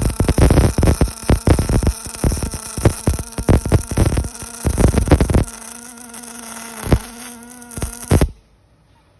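MIG welding arc crackling with rapid spattering pops, then settling to a quieter steady buzz with a few pops from about five and a half seconds in. It stops abruptly a little after eight seconds.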